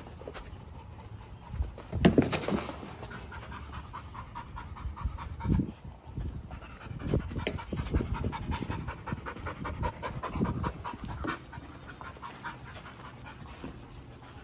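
Dogs panting close by, a quick steady run of short breaths. A few louder bursts of noise break in, the loudest about two seconds in.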